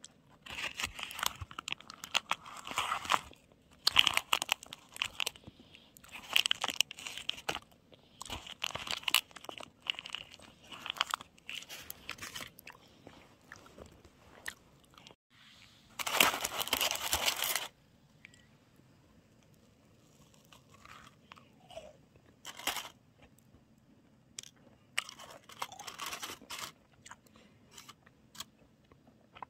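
A person eating a macaron close to the microphone: crunching bites and chewing that come in bursts about every one to two seconds. About halfway through there is one louder, longer burst, and the bursts thin out after it.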